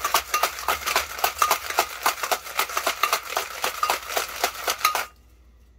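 Ice cubes rattling hard inside a metal cocktail shaker being shaken to chill the drink until ice cold, several clattering hits a second, stopping abruptly about five seconds in.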